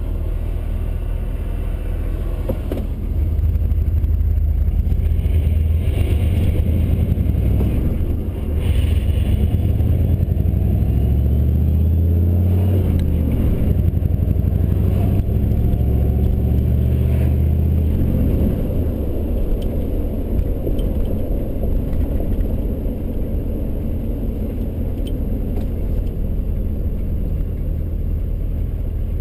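A 1983 Chevy C30 pickup's 6.2-litre diesel V8, heard from inside the cab. About three seconds in it gets louder as the truck pulls away, and the engine pitch rises and drops as it works up through the gears. In the second half it settles to a steadier cruise.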